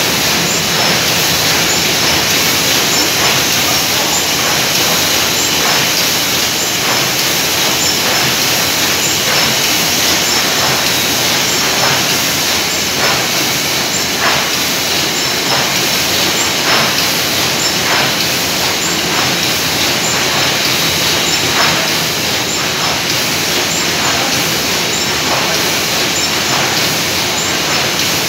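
Sheet-fed offset printing press running for tin-plate printing: a loud, steady mechanical din with repeated sharp clicks about once or twice a second.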